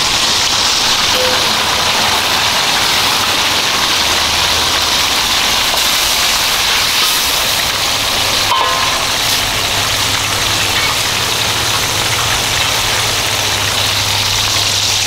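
Loud, steady sizzling of food being stirred with a wooden spatula in a very hot wok on a propane burner stove. A low steady hum sits beneath it and grows stronger in the second half.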